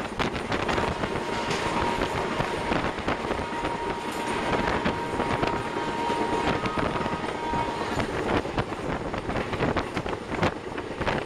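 Express passenger coach running at high speed through a station, heard from the open doorway: wheels clatter over rail joints and points amid a steady rush of air. A faint steady high tone is held from about a second in until nearly eight seconds.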